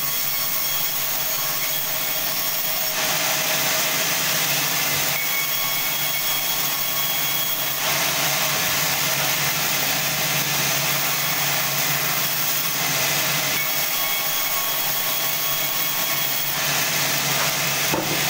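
Sawmill bandsaw running and cutting through a large log: a steady machine hum with a high hiss, its tone shifting a few times.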